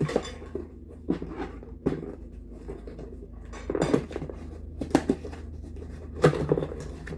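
Light clinks, taps and rustling of an item being unpacked and handled, in short scattered bursts.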